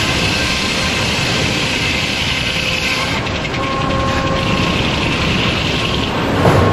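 Sawmill circular head saw ripping through a beech log, the cut ending about three seconds in; after that the blade and mill machinery keep running with a steady hum. A single thump near the end.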